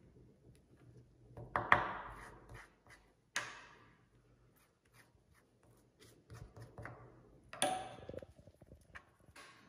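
Hands folding and rolling a thin spring roll pastry sheet on a wooden cutting board: soft rustling and handling noise, with a few sharp taps and clinks, the loudest about two seconds in and again near the end.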